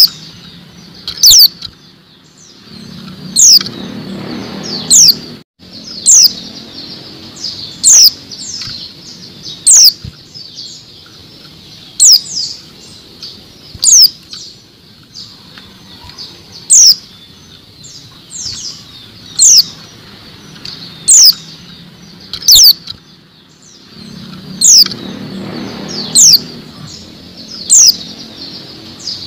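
Female white-eye (pleci) giving short, sharp, falling 'tseet' calls, one about every one to two seconds.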